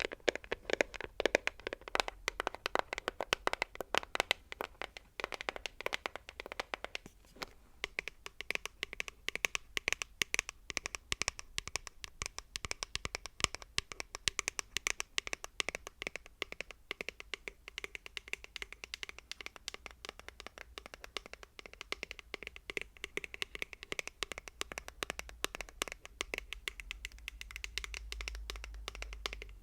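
Fast, continuous fingertip and fingernail tapping on hard objects, many light taps a second, with a low rumble swelling near the end.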